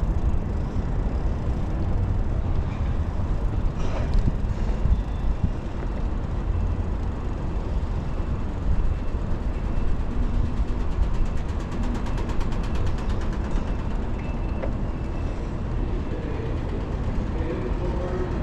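Wind buffeting the microphone of a moving bicycle, a steady low rumble, with city traffic around. A rapid run of high ticks sounds about two-thirds of the way in.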